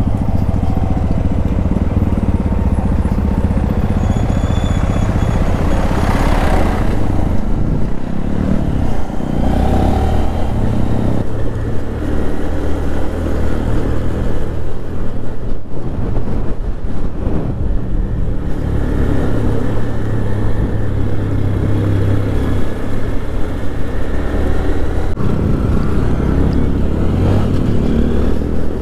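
Motorcycle engine running under way as the bike rides along, its pitch rising and falling with throttle and gear changes.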